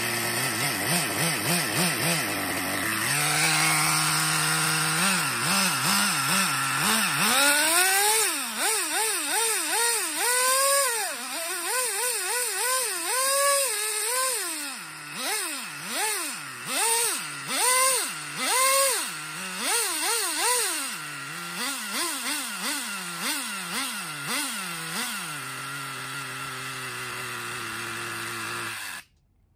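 Small nitro glow engine of a 1/10-scale CEN RC car running on a stand: it idles, then is revved again and again in quick rises and falls of pitch, settles back to a steady idle, and cuts off suddenly near the end.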